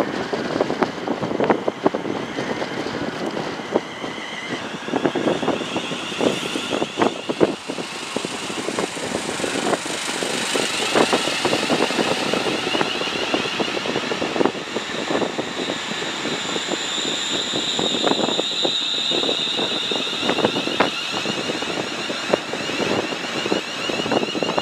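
ScotRail electric multiple unit passing through the station, its wheels clicking steadily over rail joints. From about five seconds in, a high whine sounds over the wheel noise.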